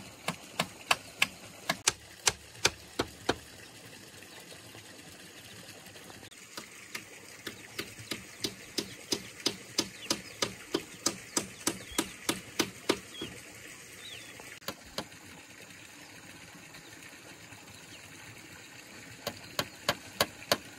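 Rapid, evenly spaced tool strikes, about three a second, in three runs with pauses between them, as in hammering or chopping during building work.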